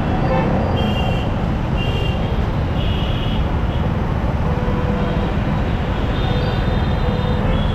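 Yamaha R15M motorcycle being ridden along a road: a steady rush of wind noise over the microphone with the single-cylinder engine and surrounding traffic running beneath, and a few brief faint high tones.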